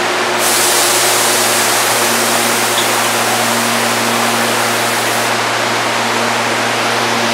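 Electric train noise at a station platform: a steady hum of several low tones under a loud, even rush of noise. A hiss cuts in suddenly about half a second in and stops about five seconds in.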